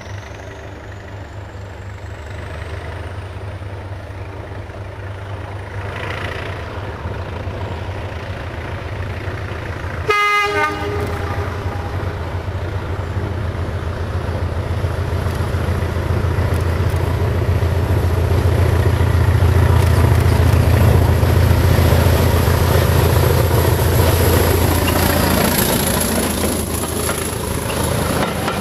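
Diesel locomotive hauling coaches approaching and passing, its engine drone growing louder as it nears. It gives one short horn blast about ten seconds in, and the coaches' wheels rush by over the rails near the end.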